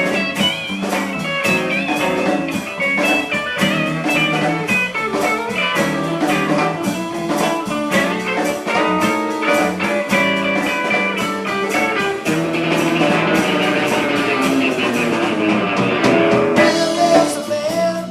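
Instrumental break in a blues-rock song, led by guitar, with a steady beat underneath.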